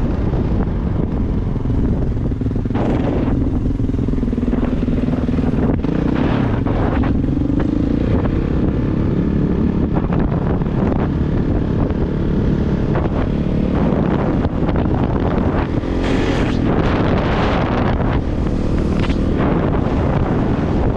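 Kawasaki KX450 dirt bike's single-cylinder four-stroke engine running under throttle while riding, its pitch climbing between about two and eight seconds in, with surges of revving later on. Heavy wind buffeting on the microphone runs under the engine.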